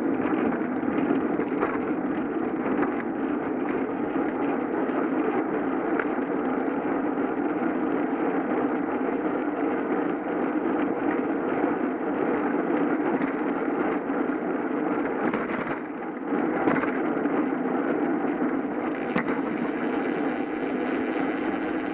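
Steady rushing wind and road noise on a GoPro riding along on a moving bicycle, with a short dip about sixteen seconds in.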